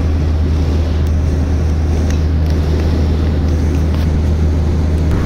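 Steady low drone of a vehicle driving at highway speed, engine and tyre noise heard from inside the cabin.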